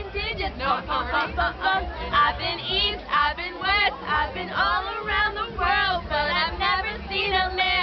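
Several people singing together in high voices, loosely and overlapping, with a low bass underneath.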